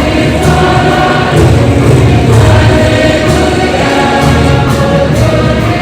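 A choir singing a gospel hymn with musical accompaniment.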